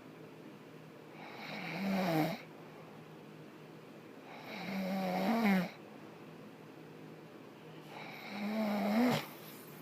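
A man snoring in his sleep: three snores about three and a half seconds apart, each growing louder and then cutting off sharply.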